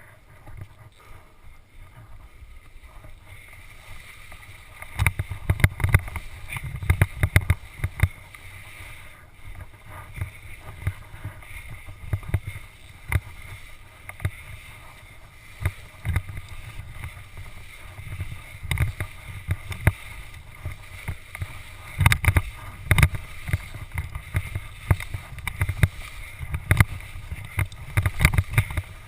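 Helmet-mounted GoPro Hero HD camera rattling and chattering in its mount during a ski run: rapid, irregular knocks and thumps that start about five seconds in. The camera is vibrating against a mount whose supplied rubber insert does not damp it.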